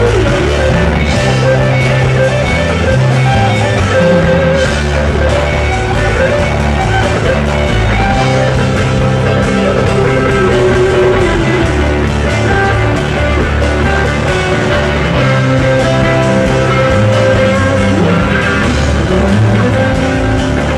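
Live rock band playing loud, with electric guitars over a bass line that changes note every second or so, and a few sliding guitar notes.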